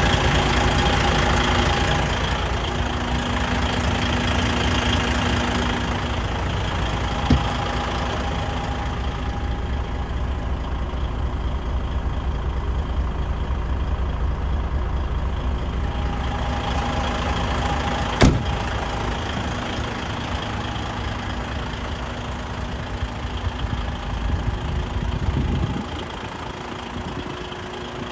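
DAF CF85.460 truck's PACCAR MX straight-six diesel idling steadily, with two sharp clicks, one about seven seconds in and one about eighteen seconds in. The engine sound grows fainter near the end.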